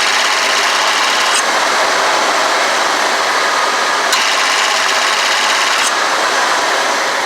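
1991 Ford E250's 5.8-litre V8 running with the air conditioning on max, its AC compressor clutch clicking in and out every couple of seconds, three clicks in all. This rapid cycling is not supposed to happen, and the owner takes it for low refrigerant.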